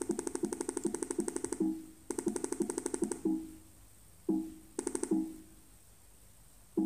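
MacBook system sounds going off as keys are pressed: a fast string of short, hollow, identical beeps, about a dozen a second, for the first second and a half, then shorter strings and single beeps with pauses between them.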